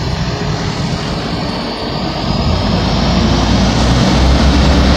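Road traffic passing, then the heavy diesel engine of a Mack concrete mixer truck rumbling louder as it draws up close, steady and strong over the last second or so.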